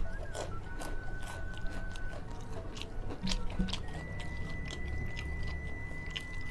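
A person chewing a mouthful of rice and fish close to the microphone, with many short wet clicks and crunches from the mouth.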